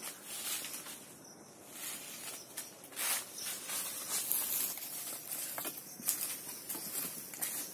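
Footsteps crunching and rustling through dry fallen leaf litter, a run of short, irregular crackles.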